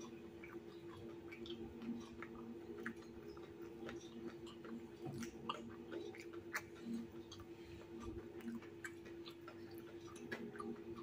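Close-up sounds of a person chewing crispy fried tahu bakso with rice: many small, irregular mouth clicks and chewing noises, over a faint steady hum.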